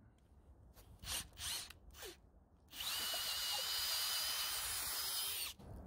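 Kobalt 24V brushless cordless drill: a few short blips of the motor, then the motor running steadily for about three seconds with a high whine before stopping suddenly.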